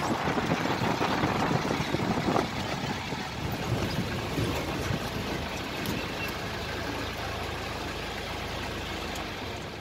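Safari 4x4 engine and road noise with wind on the microphone. After about two to three seconds it settles into a steadier, quieter engine hum.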